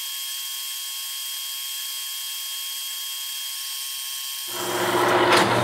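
Metal lathe running with its tool taking a cut on a part held in a four-jaw chuck: a steady high hiss and whine with faint steady tones. About four and a half seconds in, the lathe's deeper running hum comes in.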